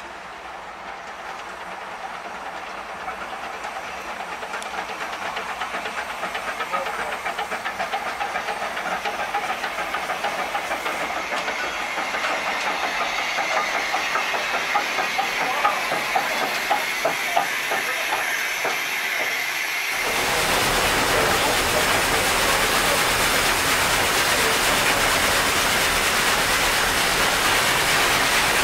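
Achenseebahn rack-railway steam locomotive working, its steam and exhaust growing steadily louder, with a few sharper peaks. About two-thirds of the way in this changes abruptly to the steady, louder running noise of the train as heard from inside an open carriage.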